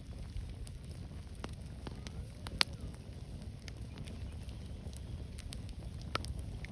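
Campfire crackling: scattered sharp pops and snaps, one loud snap about two and a half seconds in, over a steady low rumble.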